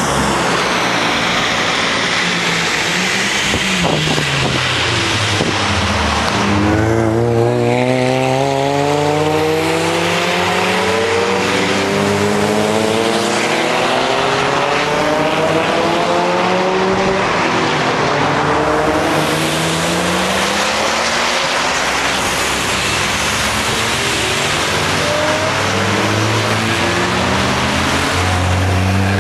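Several trackday cars accelerating past one after another out of a corner, their engine notes rising in pitch as they pull away, over a constant hiss of tyre and wind noise.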